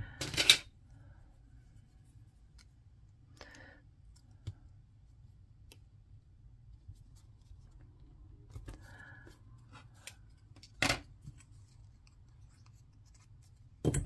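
Small cardstock pieces handled and pressed into place on a craft cutting mat: faint scattered paper rustles and three sharp clicks, one just after the start, one about eleven seconds in and one at the end.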